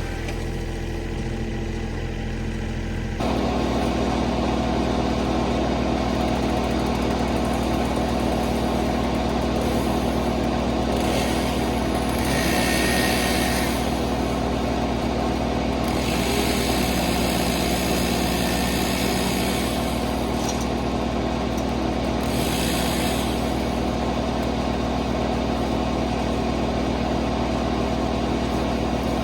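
Kubota L3901 diesel tractor running a WoodMaxx MX-8800 PTO wood chipper, its flywheel spinning. The engine steps up in speed about three seconds in. Three harsh chipping bursts follow as saplings are fed through, the engine sagging slightly under the middle, longest one.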